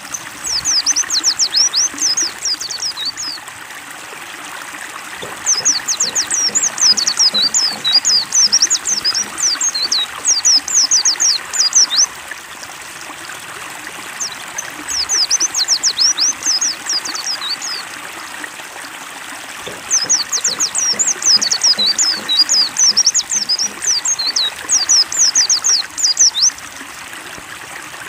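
Steady trickle of running water, with a white-eye (pleci) singing over it in four bursts of fast, high twittering song, each a few seconds long.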